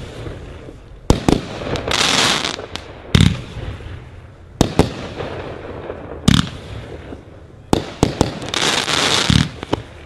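A 25-shot consumer cake firework going off: a run of sharp reports, about one every second or two, with stretches of crackle after the bursts early on and near the end.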